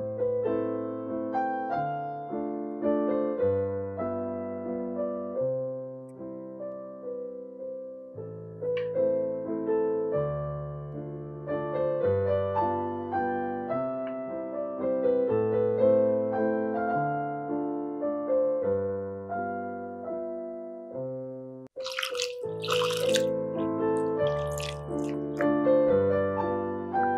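Background piano music throughout. In the last few seconds come several short splashes of water as strawberries are rinsed by hand in a glass bowl.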